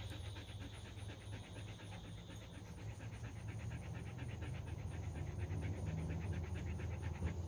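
Dog panting quickly and evenly, open-mouthed with tongue out.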